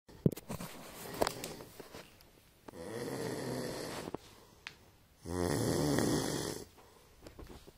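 An animal snoring, two long snores of about a second and a half each, the second louder. A couple of sharp clicks come before them.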